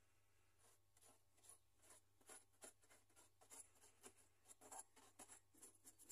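Paintbrush bristles dabbing and scrubbing paint onto a rough, lumpy model mountain: a run of faint scratchy strokes, about two or three a second, starting about a second in.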